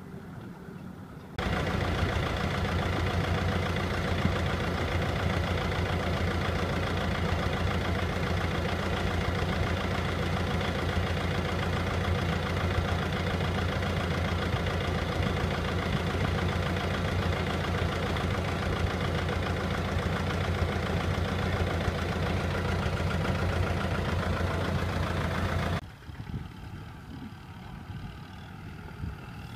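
Farm tractor engine running steadily at close range, heard from on board the machine, with a fast, even firing rhythm. It starts abruptly about a second in and cuts off abruptly near the end, leaving a much quieter engine sound.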